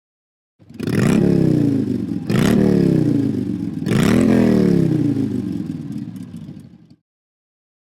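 Ringtone of an engine being revved: three revs, each climbing quickly in pitch and then dying slowly away, ending abruptly.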